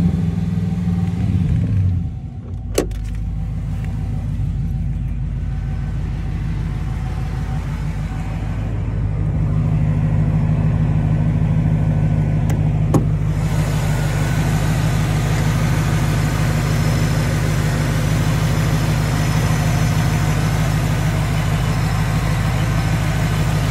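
1995 Chevrolet Impala SS's 5.7-litre LT1 V8 idling steadily, its pitch wavering briefly at the start. It gets louder from about nine seconds in, heard at the open hood.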